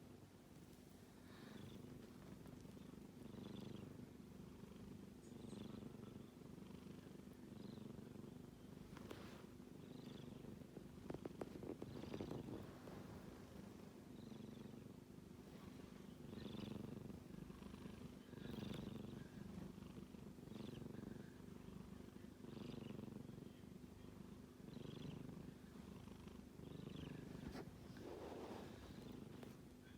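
A sleeping kitten snoring faintly, a soft raspy sound swelling with each breath about every two seconds.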